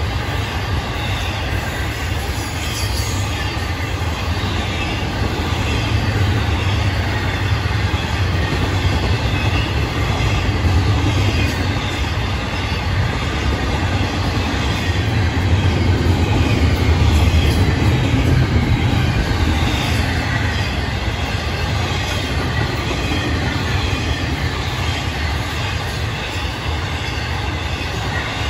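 Intermodal freight train cars rolling past on the rails: a steady low rumble of wheels and cars, swelling a little in the middle, with a faint high wheel squeal above it.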